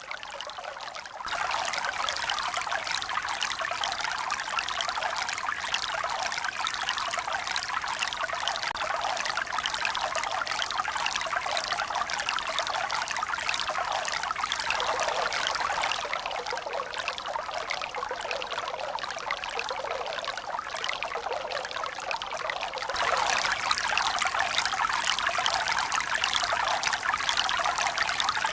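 Steady running water, a continuous splashing hiss without the rise and fall of breaking waves. It gets louder suddenly about a second in and again near the end.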